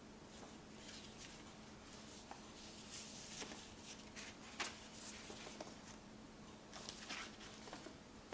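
Old, yellowed paper pages of a folded road-map booklet rustling and crinkling as they are leafed through and handled, with a few sharper crackles.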